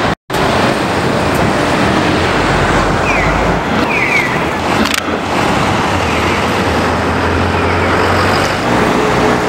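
Loud, dense city street traffic noise from buses and cars, with a low engine rumble swelling past the middle and a couple of brief high chirps around three and four seconds in.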